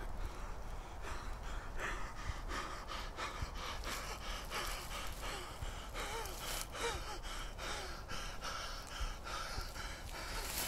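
A man gasping for breath in quick, repeated gasps, with a few brief voiced whimpers in the middle.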